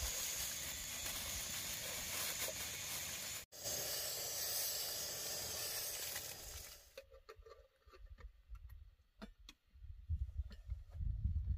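Steady hiss from a kettle heating on a small gas-cylinder camp stove, stopping about seven seconds in; then a few faint clicks and a low rumble.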